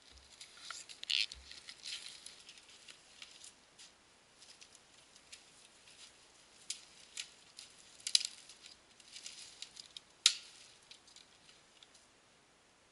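Footsteps crunching through snow and dry brush, irregular and uneven, with scattered sharp cracks of twigs; the loudest crack comes about ten seconds in.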